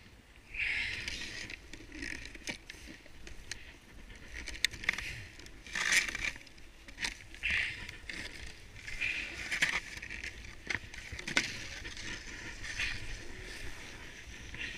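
Snow crunching and scraping under a snowboard and a seated rider shifting about, with rustling clothing and irregular sharp clicks as a boot is unstrapped from its snowboard binding.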